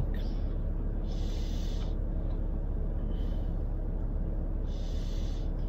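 A young child drinking from a can, with three short breathy hisses as she sips, about a second in, at three seconds and near the end. Under them runs a steady low rumble of car cabin noise.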